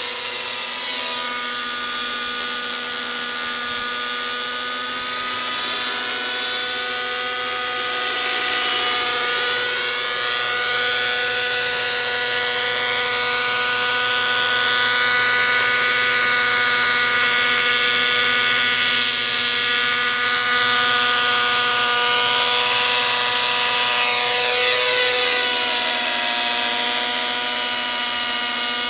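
Align T-Rex 600 nitro RC helicopter in forward flight: its OS .55 two-stroke glow engine and spinning rotors give a steady, high-pitched whine. The whine grows louder toward the middle as the helicopter passes closer, then eases off slightly near the end.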